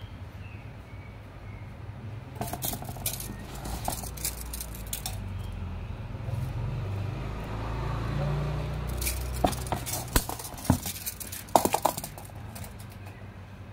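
Scattered sharp clicks and light metallic rattles, in two bunches, from a steel tape measure and a stainless wire-mesh strainer being handled on cardboard, over a low steady rumble.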